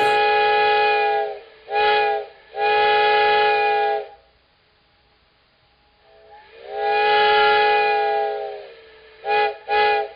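Steam locomotive chime whistle blowing several notes at once in a pattern of blasts: long, short, long, then after a pause a longer blast that sags in pitch as it dies away, and two quick short toots.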